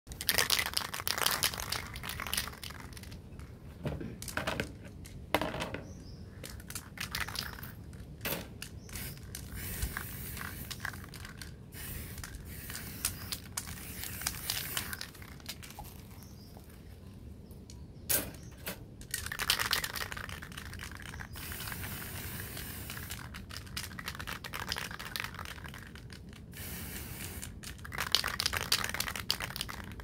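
Handling noises: intermittent rustling and crinkling in irregular bursts, with a few sharp clicks or knocks.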